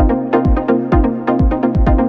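Electronic dance music with a steady kick drum, about two beats a second, over held synth chords.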